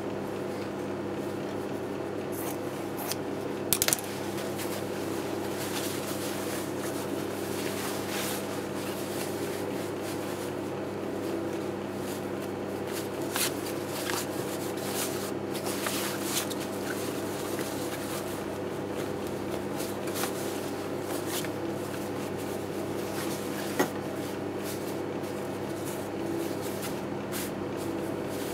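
Fabric rustling and being handled, with scattered scissor snips and sharp clicks over a steady electric hum; the loudest is a sharp double click about four seconds in.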